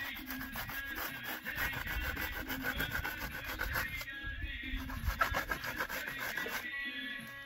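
Rapid, rhythmic scraping with music faintly underneath.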